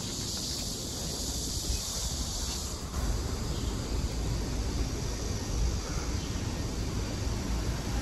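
Outdoor ambience dominated by wind rumbling on the microphone, with a steady high hiss during the first three seconds or so that stops abruptly.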